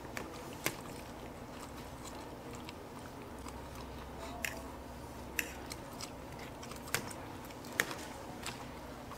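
People chewing and eating chili cheese fries and chili dogs, with a few short, sharp clicks scattered through, over a steady low room hum.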